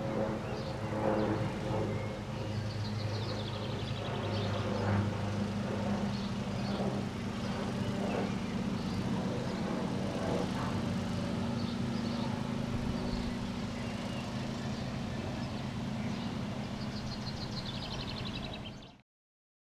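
A vehicle engine runs with a steady hum, with a few faint high chirps; the sound cuts off abruptly just before the end.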